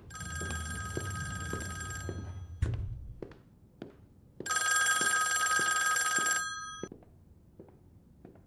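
Desk telephone bell ringing twice, each ring about two seconds long with a pause of about two and a half seconds between them. Under it, slow, evenly spaced footsteps on a hard floor, and a dull thud about two and a half seconds in.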